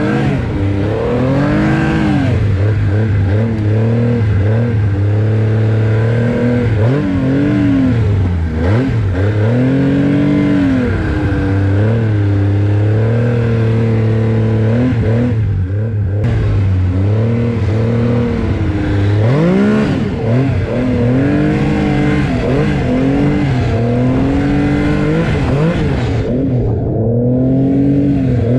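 Arctic Cat snowmobile engine running under way, its pitch rising and falling again and again as the throttle is opened and eased off.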